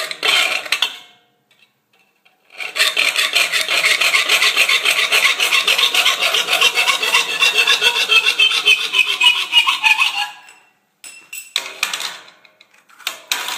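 Hand file rasping in rapid back-and-forth strokes across the point of a flat metal throwing star clamped in a bench vise, filing its edge. The steady filing begins a couple of seconds in, runs for about eight seconds, and is followed by a few single strokes near the end.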